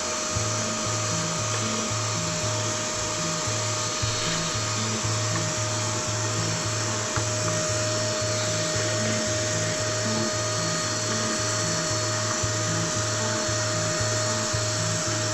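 Background music with a pulsing bass line, over the steady whine and hiss of a small power tool running without a break.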